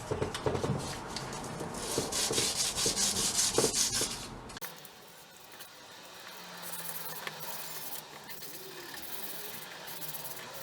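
Steel pry bar being hand-sanded with 100-grit sandpaper, in quick rhythmic back-and-forth scraping strokes to smooth out pits and rough edges. The sanding cuts off abruptly about four and a half seconds in, leaving a much quieter stretch.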